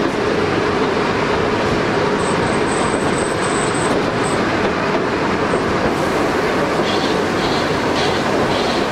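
A narrow-gauge passenger train running on 3'6" track, heard from an open carriage window: the steady noise of the carriages' wheels on the rails.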